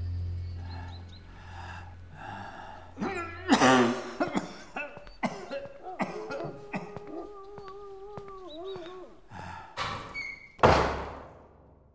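A man coughing hard several times, with a drawn-out wavering groan between the coughs. Near the end comes a single heavy thud with a ringing tail.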